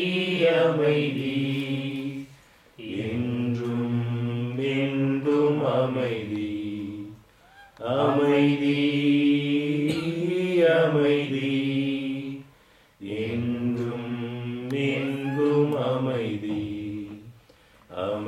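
A slow hymn sung in Tamil, in long held phrases with short breaks between them about every five seconds.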